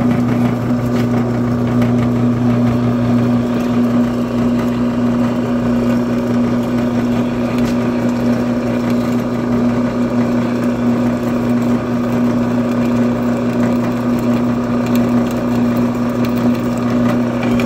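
Drill press running with a steady hum, its bit drilling holes through an aluminum plate.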